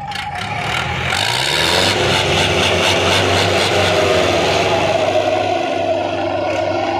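Farmtrac 6055 diesel tractor engine revving up over the first second and a half, then running steadily at high revs under heavy load as it pulls against a second tractor chained to it in a tug-of-war.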